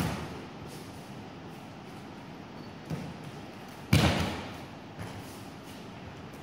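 Bodies hitting the tatami mat in aikido breakfalls: a thud just as it starts, a small one about three seconds in, and the loudest about four seconds in, each echoing briefly in the large hall.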